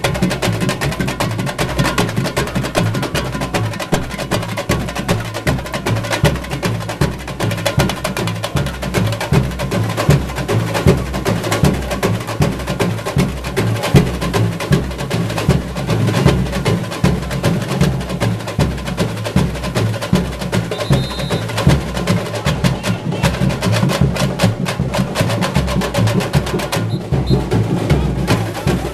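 Samba bateria drum section playing: dense, rapid, sharp tamborim strikes over a deep, steadily pulsing bass drum beat.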